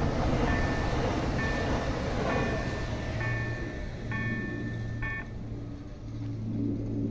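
A level-crossing warning signal chimes about once a second while the tail of an ED78 electric multiple unit rolls past over the rails. The chiming stops about five seconds in, leaving a low steady hum.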